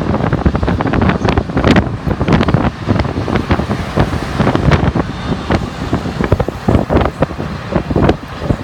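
Wind buffeting the microphone in irregular gusts over the rumble of a moving vehicle.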